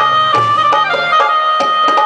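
Live instrumental garba music: a melody of long held notes over a steady, quick drum beat.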